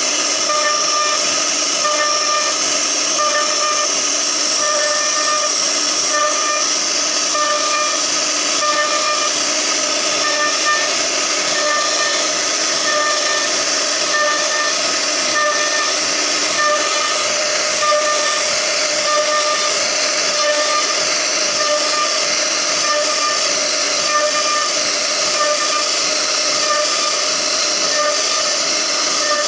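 CNC router spindle running steadily with a high whine as its bit cuts grooves in wood, over a hiss of cutting. Its tones pulse stronger and weaker every second or so as the bit moves through the carving.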